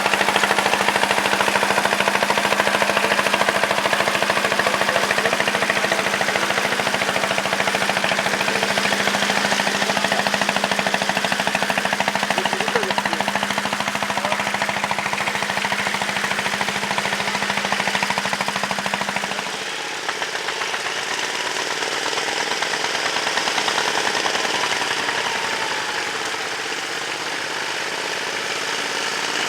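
Tractor diesel engine running steadily with a rhythmic knocking clatter. About two-thirds of the way through, a steady hum drops out and the engine sound changes.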